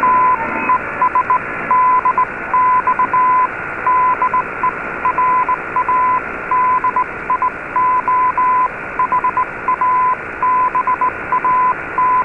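Morse code sent as a keyed tone of short and long beeps, heard through a weak, noisy shortwave AM broadcast on a communications receiver. Under it run a constant static hiss and a faint steady whistle, and the sound is narrow and telephone-like.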